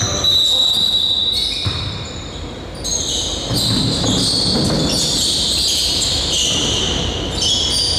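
Basketball game sounds on an indoor court: sneakers squeaking on the floor in many short, high squeaks one after another, with a ball bouncing.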